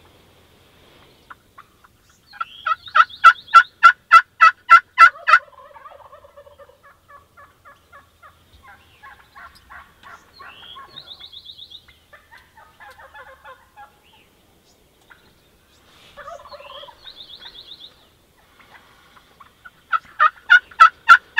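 Gould's wild turkeys calling: a loud run of about ten rapid, evenly spaced notes a few seconds in, quieter strings of calls through the middle, and another loud run near the end.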